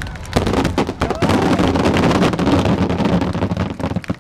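Aerial firework shells bursting in quick succession: sharp bangs that run together into a continuous loud rumble with crackle, dying away just before the end.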